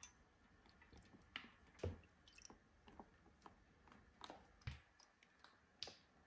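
Faint, scattered small clicks, taps and wet squishes of rusty tin-can parts and glass being handled in a tub of vinegar. Two soft knocks come about two seconds and nearly five seconds in.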